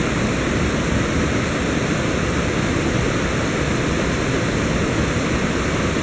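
River water rushing past, a steady, even noise of fast-flowing water.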